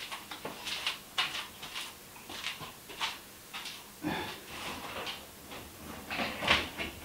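Irregular scrapes, rustles and knocks of a bundle of electrical wires being pulled through a hole in the wall into a breaker panel, with a couple of heavier thumps about four seconds in and near the end.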